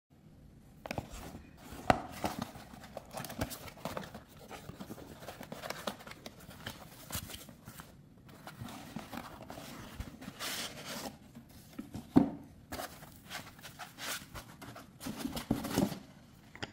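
Handling sounds of unboxing: a cardboard box being opened, with rustling and scraping, and a needle coffee distributor being lifted out of its foam insert and handled. Scattered knocks throughout; the sharpest come about two seconds in and again about twelve seconds in.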